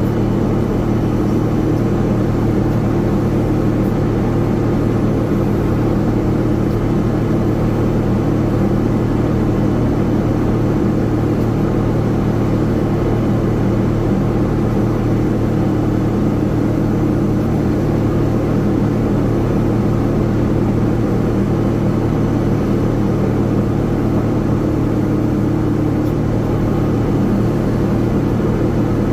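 Steady, unchanging engine rumble with a low droning hum, from aircraft or ground equipment engines running during an airliner pushback.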